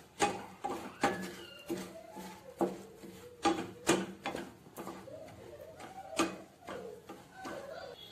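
A spatula scraping and knocking against a non-stick frying pan while stirring sugar that is melting into caramel, gritty with the undissolved sugar crystals; the strokes come irregularly, roughly one or two a second.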